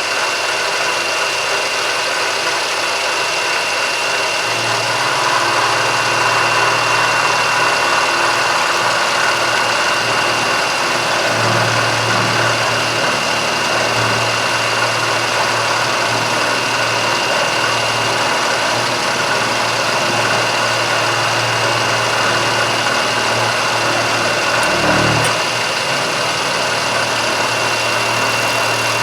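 Milling machine running steadily as it takes a pass along the corner of a metal piece, breaking the edge. A constant high whine throughout, and a deeper hum comes in about four seconds in.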